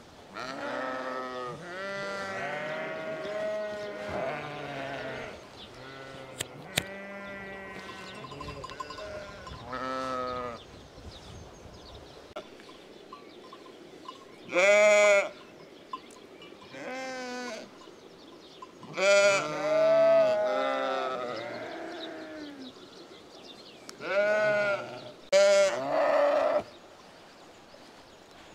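A flock of sheep bleating: a string of long calls from several animals, loudest and most frequent in the second half.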